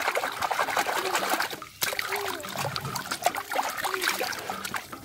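Water splashing and swishing as a plastic toy camel is scrubbed by hand in a shallow tub of water, with a brief break about two seconds in.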